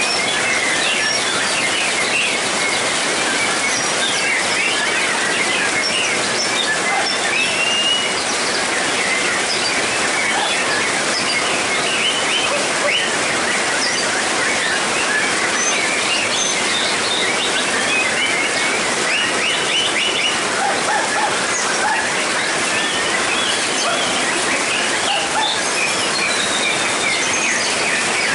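Caged white-rumped shamas singing, many short overlapping chirps and whistles at once, over a steady hiss of heavy rain on a metal roof.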